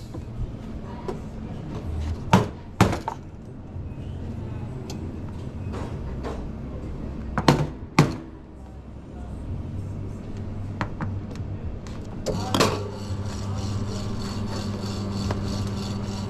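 Coffee-making clatter: a handful of sharp knocks of metal and crockery, then about ten seconds in a coffee machine starts a steady hum. A higher whine joins it near the end.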